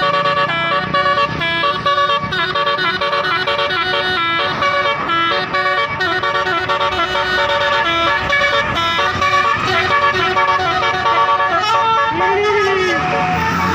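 Basuri multi-tone telolet bus horn playing a quick melody, its notes changing in rapid steps, with one swooping up-and-down note near the end.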